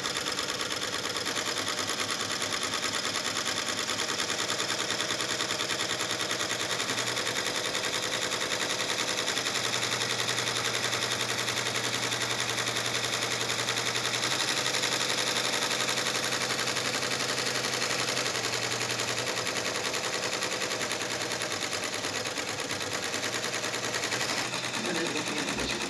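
Multi-needle embroidery machine stitching at speed: a fast, steady mechanical rattle of the needle punching through the fabric, running without a break.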